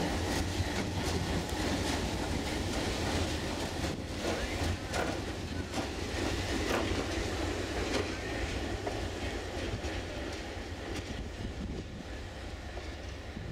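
ALCO diesel locomotive rolling slowly past at close range, its engine rumbling low while the wheels click over the rail joints, the clicks coming mostly a few seconds in. The sound eases off near the end as the locomotive draws away.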